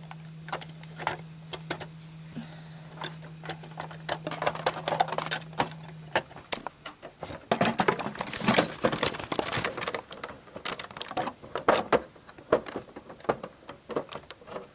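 Plastic Lego bricks clicking and clattering as the model is handled by hand and parts of it are lifted off. The clicks and knocks come thicker and louder in the second half.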